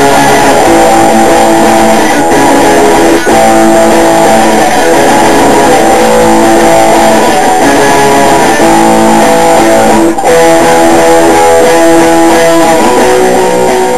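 Electric guitar being played loud, a steady run of held notes and chords with two brief breaks, about three and ten seconds in.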